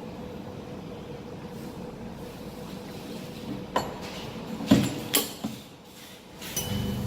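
A few sharp clinks and knocks as a phone screen is handled and loaded into an air bubble remover machine, then the machine starts with a steady low hum near the end.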